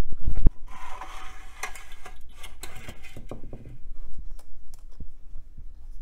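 Sheet-metal outer shell of a 3.5-inch floppy drive being slid off its metal frame by hand: a few sharp metallic clicks, then a scraping slide of about two and a half seconds, followed by light clicks and taps as the opened drive is handled.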